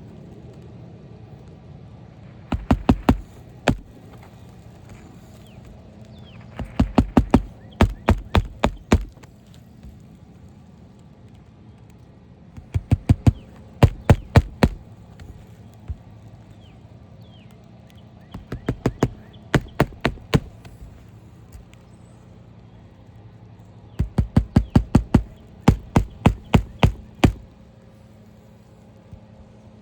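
Hammer nailing down a replacement asphalt roof shingle: bursts of quick strikes, several a second, repeated every few seconds with pauses between.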